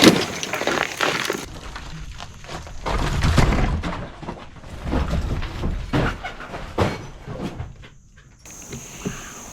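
Old log wood cracking and breaking apart, with repeated knocks and heavier thuds as pieces come loose and drop.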